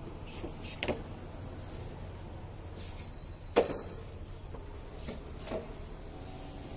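A few sharp knocks over a steady low hum, the loudest about three and a half seconds in, with a brief high squeal just around it. The knocks ring on in a large concrete parking garage.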